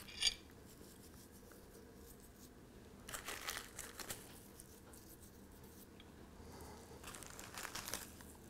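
A light click just after the start, then faint rustling and crinkling in two short spells, about three seconds in and again near the end, as a glued model tree of fibre and leaf scatter is handled and turned in its clamp.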